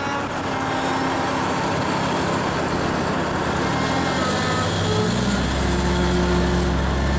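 Mitsubishi Airtrek's turbocharged 4G63 engine running as the car drives. The revs climb from about three and a half seconds in, and a deep low rumble joins at about five seconds.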